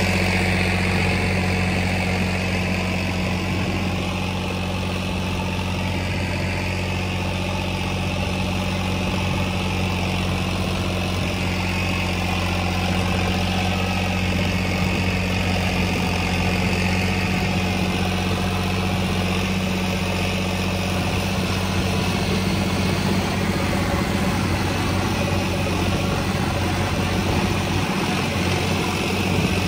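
John Deere 5105 tractor's three-cylinder diesel engine running at a steady speed; its low note changes near the end.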